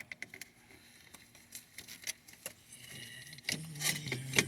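Scattered metallic clicks, taps and clinks of tools and parts being handled while a diesel fuel filter head is fitted by hand, getting busier and louder near the end. A brief low hum sounds under the clicks in the last second.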